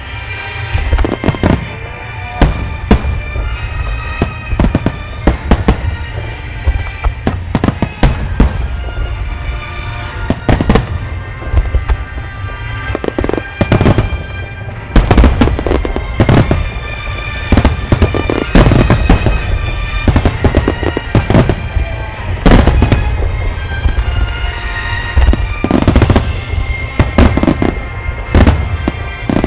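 Large aerial firework shells bursting in quick succession: a dense, irregular run of sharp booms and cracks over a continuous low rumble. Music with long held notes plays at the same time. The loudest bursts come in the second half.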